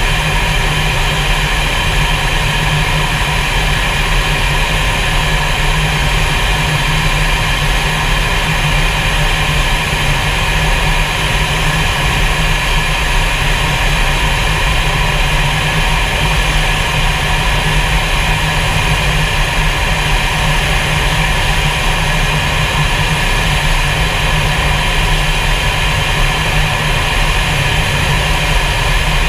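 Steady jet engine and airflow noise inside a fighter jet's cockpit in flight: a low rumble under a constant hiss with several steady high whines.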